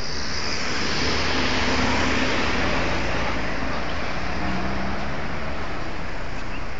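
Road traffic noise: vehicle engines and tyre hiss, swelling over the first couple of seconds and then easing off.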